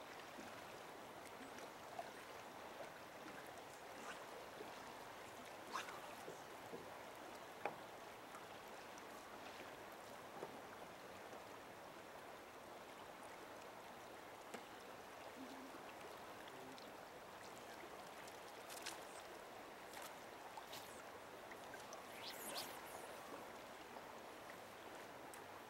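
Faint, steady rush of a river's current flowing over a gravel bed, with a few faint ticks here and there.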